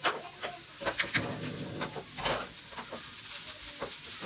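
Food sizzling in butter in a frying pan on a gas stove, a steady hiss broken by several sharp clicks and knocks of a utensil against the pan.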